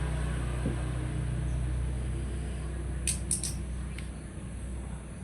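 A steady low hum, with a quick run of three sharp clicks about three seconds in and one more click about a second later.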